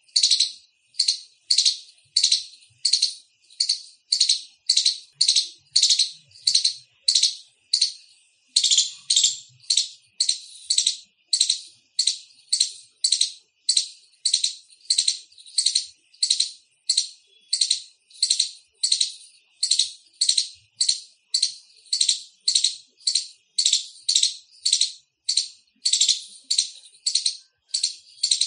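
Indian palm squirrel giving its loud chirping call: a short, sharp chip repeated about twice a second in a steady, unbroken series.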